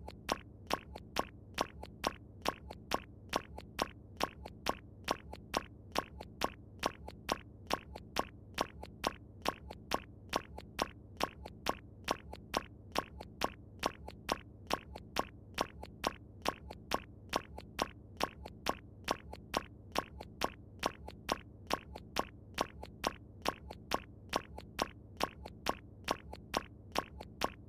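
A short click-like sound effect repeating in an even rhythm, about three strokes every two seconds, over a faint low hum.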